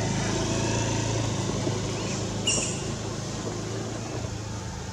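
A motor vehicle's engine running steadily as a low hum that slowly fades, with a short sharp click about two and a half seconds in.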